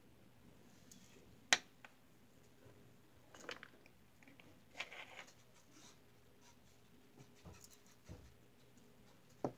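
A few light clicks, taps and scrapes of nail tools and small glitter jars being handled and set down on a table, with one sharp click about a second and a half in.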